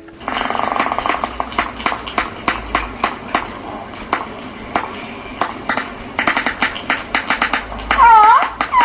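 Hydrophone recording of orcas (killer whales): trains of echolocation clicks, a fast run of them about the first second, then a short pitched call sweeping in pitch about eight seconds in.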